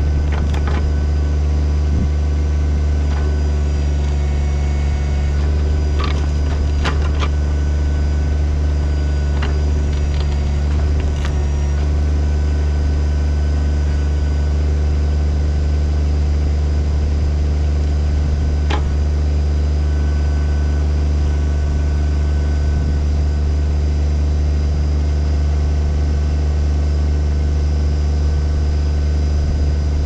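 Kubota BX25 subcompact tractor's three-cylinder diesel engine running steadily while the backhoe is worked. A few sharp clicks and knocks stand out, mostly between about six and eleven seconds in and once more later.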